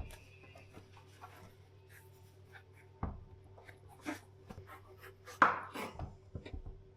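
Knife chopping on a chopping board: a few irregular knocks and short scrapes over a steady low hum.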